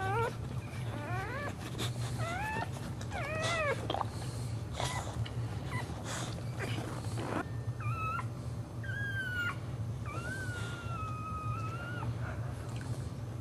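A dog whimpering and squealing in high-pitched, rising cries: several short ones in the first few seconds, then longer, drawn-out cries later on. A steady low hum and some rustling run underneath.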